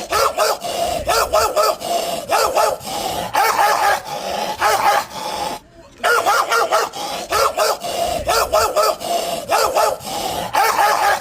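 Dog barking angrily in rapid runs of three or four barks, again and again. About halfway through there is a brief break, and then the same barking repeats.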